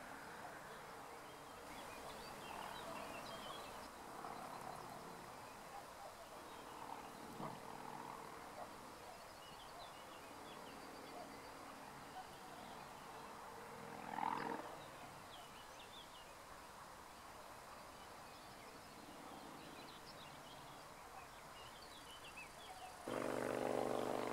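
Faint outdoor background ambience with scattered short, high bird-like chirps and a brief louder sound about halfway through. Near the end a steady, humming sound with several tones starts suddenly and is the loudest part.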